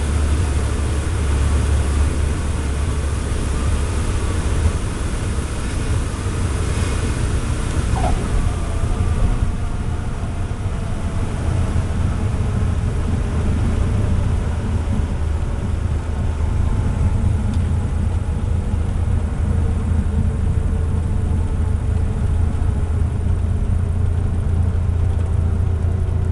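Cessna 152's four-cylinder Lycoming engine and propeller running at a steady, low drone.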